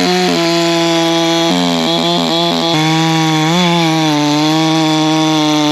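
Ported Echo CS-620 two-stroke chainsaw at full throttle bucking a log. Its high steady note dips several times about a second and a half in as the chain takes load, then recovers.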